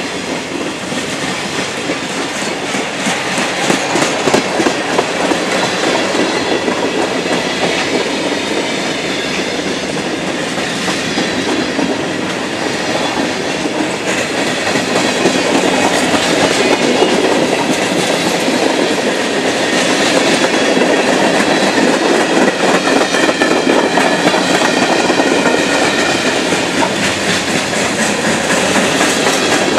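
Freight train's cars rolling past on the track: boxcars, tank cars and covered hoppers, steel wheels clicking over the rails in a steady, continuous rush that grows a little louder about halfway through.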